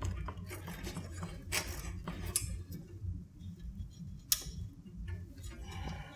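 Small scattered clicks and taps of hands handling cables and parts inside a computer case, with one sharper click about four seconds in, over a steady low hum.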